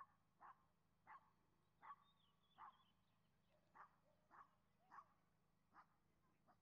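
A dog barking faintly, about ten short barks in an even series, roughly one every two-thirds of a second.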